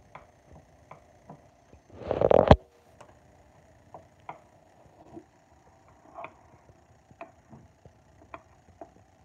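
Metal spoon clicking and scraping against a ceramic ramekin while breaking into the crust of a small chicken pot pie, in scattered light ticks, with a louder burst of noise lasting about half a second about two seconds in.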